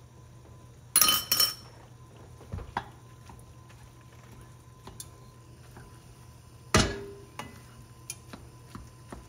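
Wooden spoon knocking and scraping in an enameled cast-iron pot while tomato paste is stirred into browned ground meat. There is a short clatter about a second in and one sharper knock about seven seconds in, with lighter taps between.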